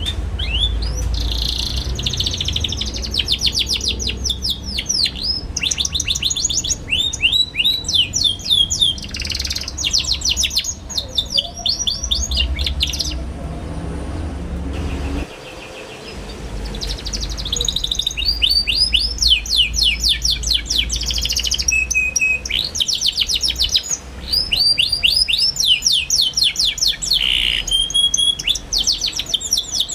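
Young domestic canary singing fast chattering runs of quick falling chirps and trills. It breaks off for a few seconds mid-way, then starts again.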